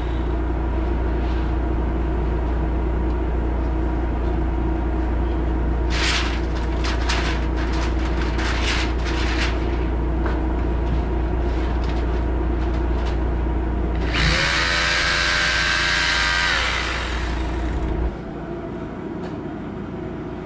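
A steady low machine hum, with a run of short sharp taps and scrapes in the middle. Near the end a power tool runs with a steady whine for about two and a half seconds.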